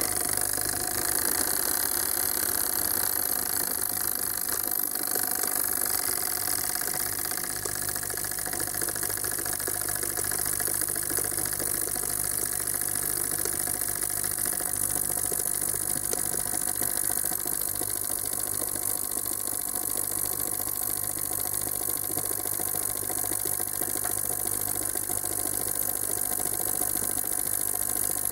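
Ultrasonic cleaning bath running with a steady buzzing hum and a strong high hiss, cleaning a stuck Bosch common-rail fuel metering solenoid valve that is submerged in it.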